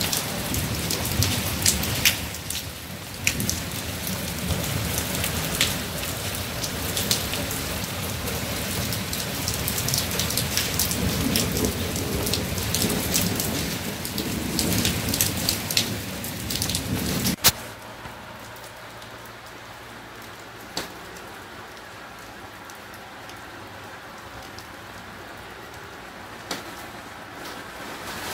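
Heavy rain pouring onto flooded pavement, with many drops spattering close by. About two-thirds of the way in, a sharp click comes and the sound drops at once to a much quieter, duller hiss of rain heard from behind a window.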